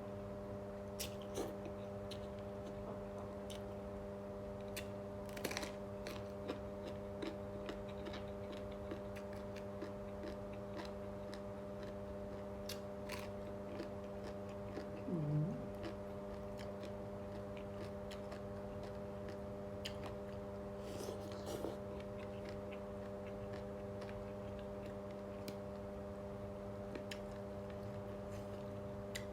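A person eating instant noodle soup with chicken, with scattered small chewing and mouth sounds and a brief louder sound about halfway through. A steady hum runs under it.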